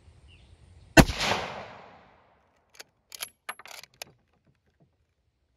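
A single shot from a sporterized Lee-Enfield No. 1 Mk III rifle in .303 British about a second in, its report ringing out and dying away over about a second. Then a quick series of metallic clicks and clacks as the bolt is worked to eject the spent case and chamber the next round.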